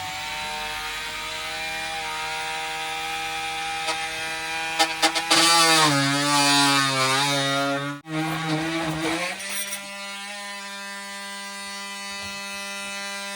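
Reciprocating saw running while cutting a wooden strip. Its motor whine drops in pitch and wavers in the middle as the blade bites into the wood, breaks off briefly about eight seconds in, then runs steady at a higher pitch to the end.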